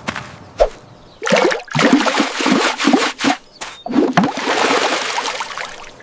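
Water splashing and sloshing in uneven surges, starting about a second in and running to near the end.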